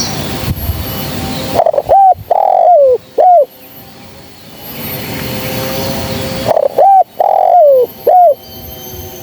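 Spotted dove cooing: two phrases, each of three low coos, a short note, a longer one falling at its end, then a short one. A steady hiss fills the gaps between the phrases.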